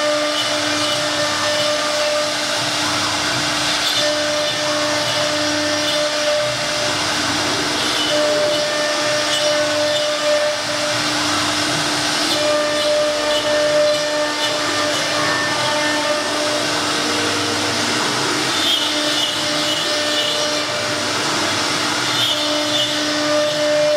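A CNC router's 6 kW spindle running steadily while cutting MDF board: a steady whine over a constant rushing noise, the higher tone of the whine fading in and out.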